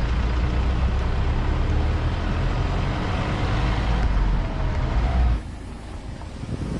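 Motor vehicle on the move: engine and road noise with a heavy low rumble that drops away suddenly about five seconds in, leaving a quieter hiss.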